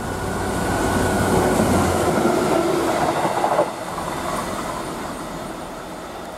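Diesel freight train passing close at speed: engine and wheels on the rails build to their loudest about one to three and a half seconds in, drop off suddenly as the locomotive goes by, then the wagons roll away more quietly.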